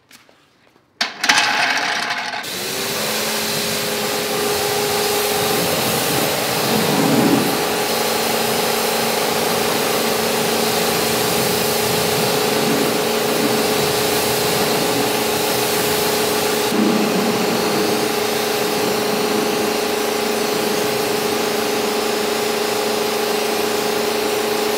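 Kärcher K1700 electric pressure washer running while its jet rinses a car wheel: a steady motor hum over the hiss of the water spray, starting suddenly about a second in.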